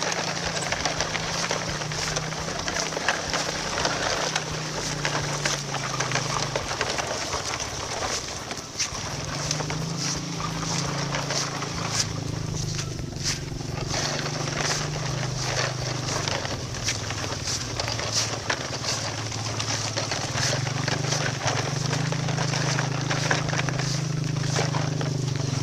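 Loaded toy tronton truck rolling forward, its plastic load rattling and clicking, over a steady low hum that drops out now and then.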